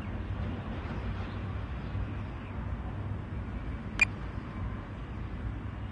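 A steady, low outdoor background rumble with no clear source. A single sharp click sounds about four seconds in.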